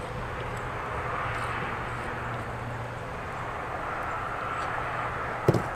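Steady drone of a distant engine, swelling slightly, over a low steady hum, with a single sharp click near the end.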